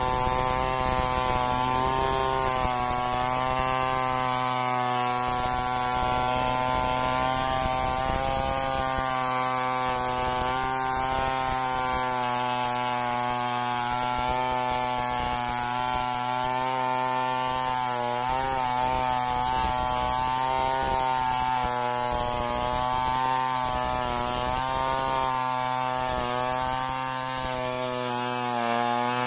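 Two-stroke chainsaw running at high revs under load, ripping lengthwise through a log. The engine note holds steady with slight wavering as the cut goes on.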